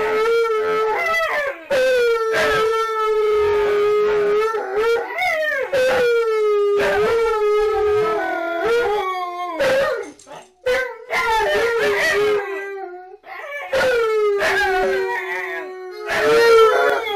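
Dogs howling together in long, drawn-out howls that overlap and slide in pitch, with two short breaks, about ten and thirteen seconds in.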